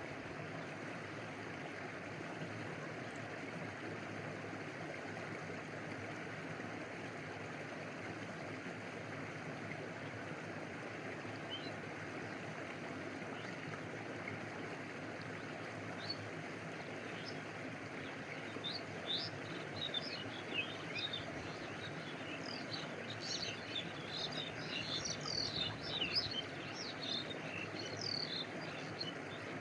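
A stream flowing steadily, with water lapping and rushing. From about halfway in, a quick run of short high chirps sounds over it, thickest near the end.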